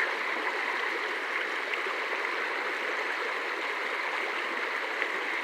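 Creek water running steadily over rocks, high after a night of heavy rain.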